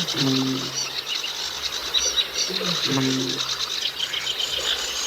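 Wild nature ambience of dense bird and insect chirping. Twice, a low two-part pitched call sounds under it, about half a second to a second long each time.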